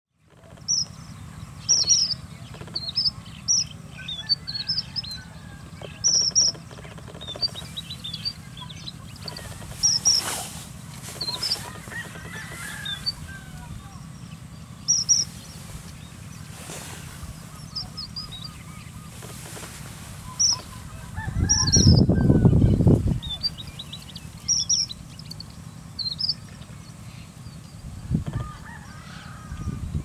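Male red avadavat (strawberry finch) singing: short, high, sweet chirps and twitters, often in pairs, repeated every second or two over a steady low hum. About two-thirds of the way through, a louder, low noise lasts about a second and a half.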